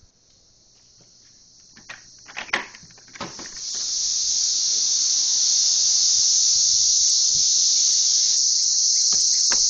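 A chorus of cicadas making a steady high-pitched buzzing drone, muffled at first and turning loud about three to four seconds in as the sound moves from indoors to the open backyard. A few knocks come just before it swells.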